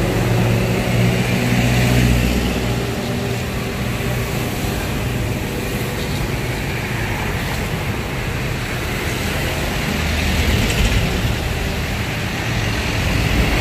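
Steady road traffic noise with the low hum of passing vehicle engines, heavier in the first couple of seconds and again near the end.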